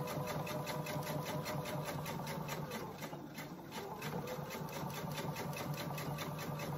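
Husqvarna Viking domestic sewing machine stitching steadily in a rapid, even rhythm as it top-stitches through batting and several layers of fabric, easing off briefly about halfway through.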